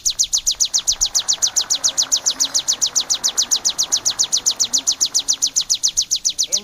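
Ciblek (prinia) calling in a fast, even run of high, sharp chirps, about ten a second.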